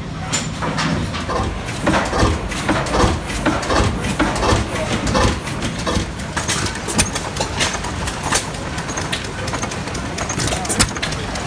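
Large stationary steam engine running under load on a prony brake, with its exhaust beating about twice a second. About halfway through it gives way to a small stationary gas engine running with sharp irregular clicks and knocks, over background voices.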